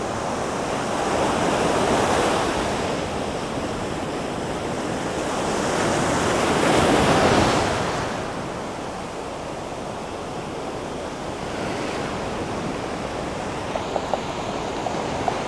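Ocean surf breaking and washing up the beach, swelling twice, about two and seven seconds in.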